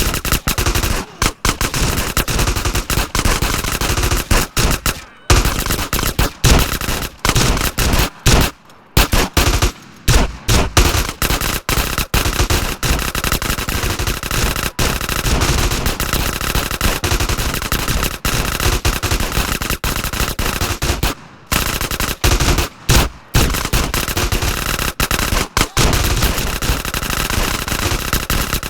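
Sustained heavy gunfire sound effect: rapid automatic fire and many overlapping shots in a near-continuous barrage, broken by a few brief pauses.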